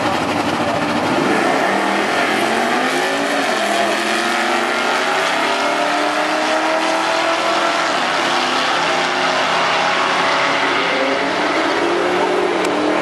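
Two Mopar drag-racing cars launching off the line and accelerating hard down the strip side by side. Their engine notes climb in pitch, fall back and climb again several times as they go through the gears.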